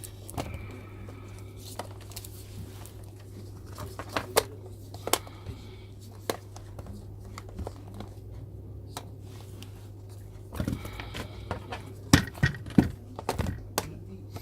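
Scattered clicks and taps of handling on an electronics workbench, a denser cluster near the end, over a steady low hum.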